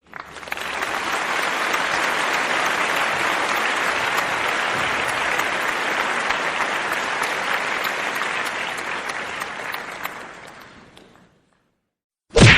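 Applause: many hands clapping, fading in, holding steady, then dying away about eleven seconds in. Near the end a single sharp punch hit.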